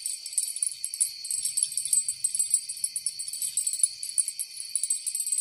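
Chorus of night insects trilling and chirring continuously in shrill, fast-pulsing layers.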